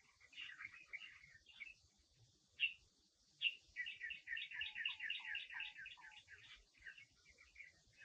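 Small songbirds chirping and twittering in quick high notes, with two sharp louder chirps a little before the middle and a dense, fast run of chirps after them.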